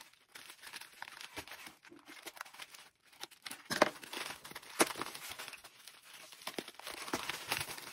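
Plastic bubble mailer crinkling and tearing as hands pull it open, in irregular rustles with a couple of sharp crackles about four and five seconds in.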